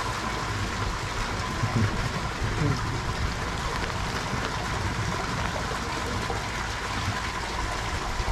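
Steady running and trickling of water in a sea lion pool.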